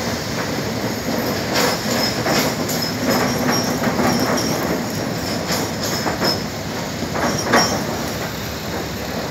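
Irregular metallic clanks and rattles from the steel truss bridge over a steady rushing background, in a run through the middle of the stretch with the loudest clank near the end.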